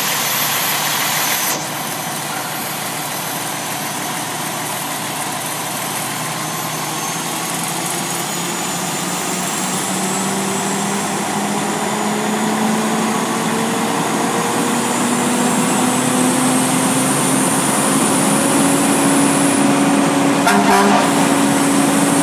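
Fire truck's engine running its fire pump, a steady mechanical noise that dips slightly about a second and a half in. Over the second half the engine speeds up, its whine slowly climbing in pitch and growing louder as the pump is throttled up from the pump panel. A short clatter comes near the end.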